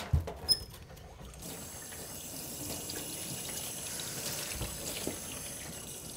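A few sharp knocks in the first half second, then a tap running steadily into a stainless steel sink as a scaled sea bream is rinsed under the stream by hand.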